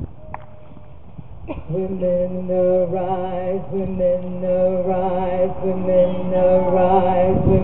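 Several voices singing one long, steady held note together, like a chant. It comes in about a second and a half in, after a brief lull.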